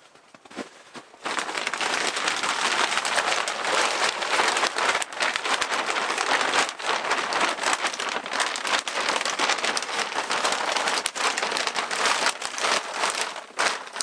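Clear plastic sheeting over a doorway crinkling and rustling as it is pulled aside and bunched up by hand. It starts suddenly about a second in and carries on as a dense crackle with many small snaps until shortly before the end.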